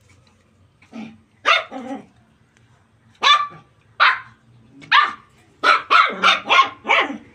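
Puppy barking: about a dozen short barks, spaced out at first, then a quick run of barks in the last couple of seconds.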